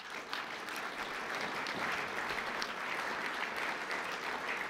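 Audience applauding: many people clapping, swelling over the first second and then holding steady.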